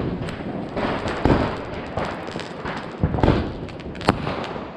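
Fireworks and firecrackers going off all around: a continual crackle of small pops with several louder bangs, near the start, just over a second in, around three seconds and around four seconds.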